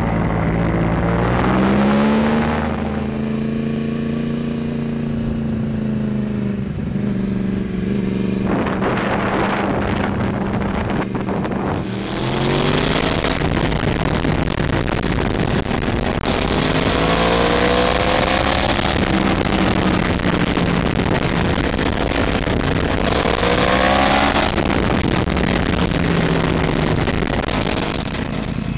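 Yamaha R1 sport bike's inline-four engine heard from on board while riding, its pitch rising and falling several times as the throttle opens and closes. A rushing hiss swells and fades with it.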